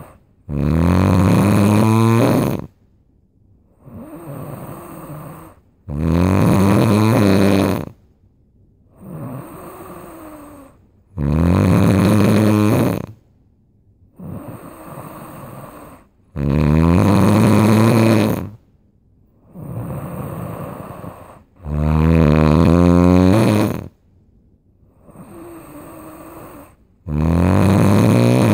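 Loud snoring in a steady rhythm: a low, rattling snore lasting about two seconds comes roughly every five seconds, with a quieter breath sound between each one. Six loud snores fall in these few seconds.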